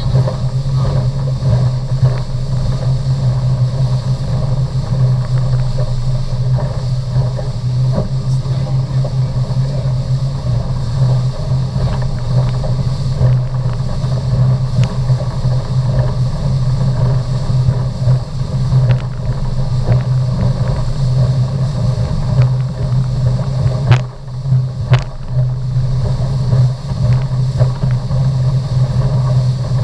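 Motorboat engine running steadily at speed, a loud low hum over wind and water rush. A brief dip about three-quarters of the way through comes with a couple of sharp knocks.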